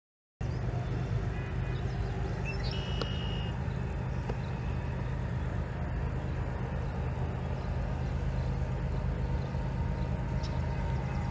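A steady low engine rumble over outdoor background noise, with a brief high tone about three seconds in.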